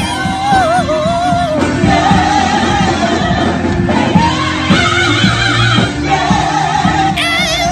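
Gospel music in a church: voices singing over instrumental accompaniment, with a poodle howling along at times in a wavering pitch.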